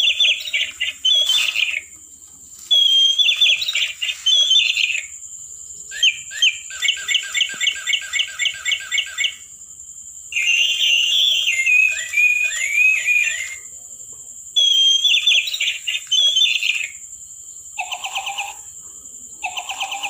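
Toy parrot playing electronic bird chirps and warbles in bursts of a few seconds with short gaps between; one burst, around the middle, is a rapid even trill. A steady high whine sits underneath.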